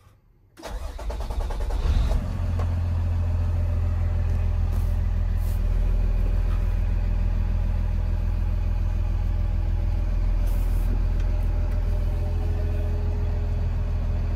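2020 Kenworth T270's diesel engine cranking over and firing about half a second in, then settling into a steady idle.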